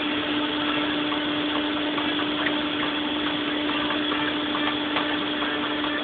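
Combine harvester running steadily while it unloads grain through its auger, a continuous machinery noise with a steady hum.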